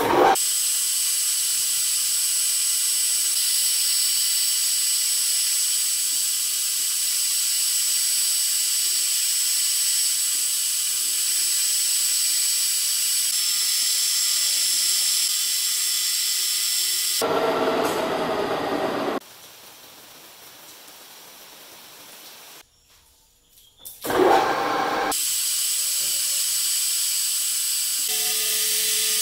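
Metal lathe turning a steel shaft, the cutting tool taking chips off with a steady high-pitched whine and hiss. The sound changes abruptly a few times partway through, with a louder, lower patch and then a short near-silent gap before the cutting whine returns.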